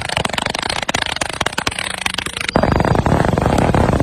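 A fireworks skyshot cake firing: a dense, rapid stream of pops and bangs that gets fuller and louder about two and a half seconds in.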